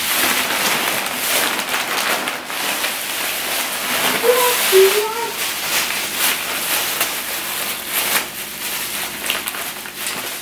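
Plastic bags crinkling and rustling steadily as they are handled and pulled up out of a cardboard box.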